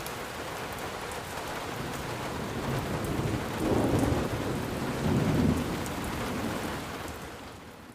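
Steady rain falling, with two low rumbles of thunder a little past the middle; the sound fades out near the end.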